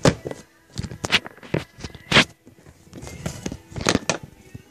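Camera handling noise close to the microphone: a run of irregular knocks, bumps and scrapes as the camera is grabbed, moved and covered over.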